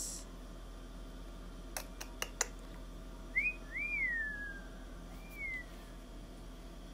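Four light clicks close together about two seconds in, likely the plastic folding phone stand being handled. These are followed by three short whistled notes, each rising and then falling in pitch, the middle one the longest.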